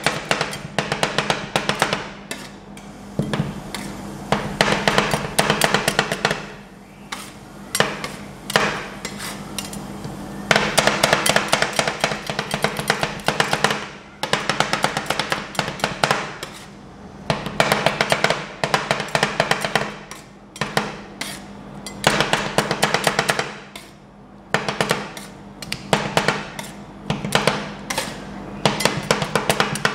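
Two metal spatulas chopping and scraping a sweet corn ice cream mixture on the frozen steel plate of a rolled ice cream pan: rapid clattering strikes in runs of a few seconds with short pauses between.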